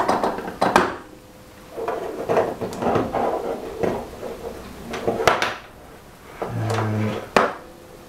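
Clatter of handling on a workbench: a few sharp knocks near the start, scraping and rustling in the middle, and another sharp knock near the end, as a battery wire and metal locking pliers are handled.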